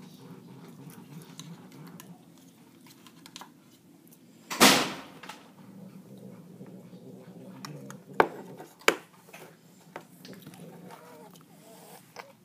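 Food tin and utensil being handled: a loud rasping scrape a little before halfway, then two sharp metallic clicks a few seconds later, over a low steady hum.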